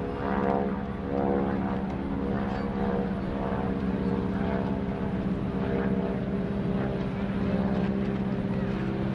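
Stearman biplane's radial engine and propeller running with a steady drone as it circles.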